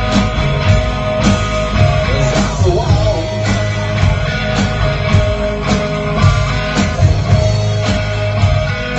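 Rock and roll band playing live: electric guitar over bass guitar and a drum kit keeping a steady beat.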